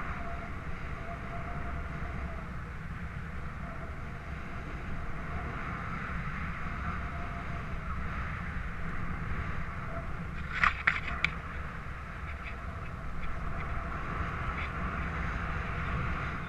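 Wind rushing over the camera microphone of a paraglider in flight: a steady rumbling hiss with a faint wavering tone, broken by a quick cluster of sharp clicks about ten and a half seconds in.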